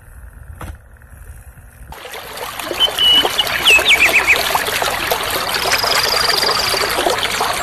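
A small desk fan running quietly for about two seconds, then wetland ambience: water trickling with birds chirping in short rising and falling calls, and a thin high whistle later on.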